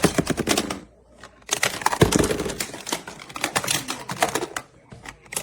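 Marbles rattling down a magnetic-tile marble run: a fast clatter of many small clicks as they knock against the plastic tiles and tubes. It comes in two runs with a short lull about a second in.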